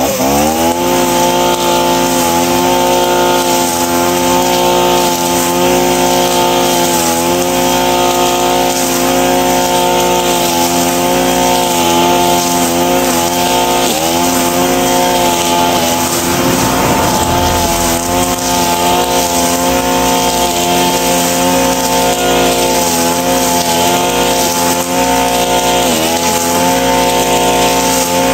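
Two-stroke brush cutter with a nylon-cord head revving up to full throttle and running steadily while cutting grass, its pitch dipping briefly twice, about halfway through and near the end.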